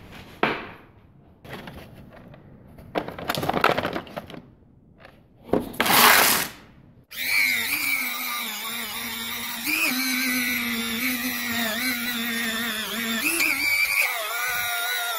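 Clattering and knocks of a plastic tool case being handled and opened. About seven seconds in, a handheld rotary tool starts and runs at a steady high whine, wavering briefly a couple of times as its small wheel is worked against an aluminium motorcycle rim.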